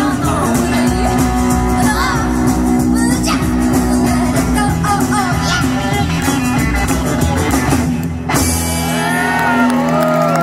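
Live rockabilly band with female vocals, electric and acoustic guitar, upright double bass and drums playing the end of a fast rock and roll number. The song stops about eight seconds in, and the audience cheers and whoops.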